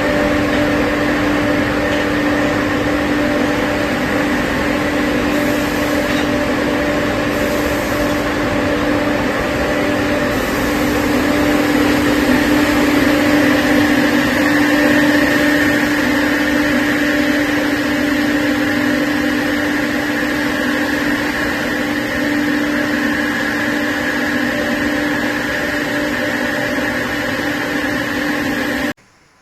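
Steady industrial machinery noise with a constant hum, cutting off suddenly near the end.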